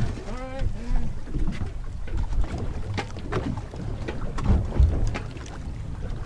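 Wind buffeting the microphone on a small boat at sea, with scattered knocks and clicks from handling on deck. A brief wavering, pitched two-part sound comes about half a second in.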